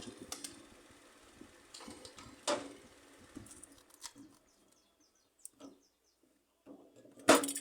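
Scattered clicks and light knocks of hands and tools handling the freezer's tubing, with a louder knock about two and a half seconds in and another near the end.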